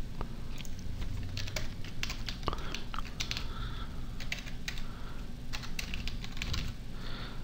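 Computer keyboard typing: a run of irregular key clicks over a low steady hum.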